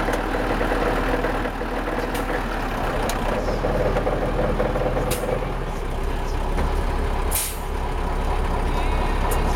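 Glider launch winch's engine running steadily just after start-up, while the operator engages the clutch and brake. A few short clicks sound over it, and a brief hiss about three quarters of the way through.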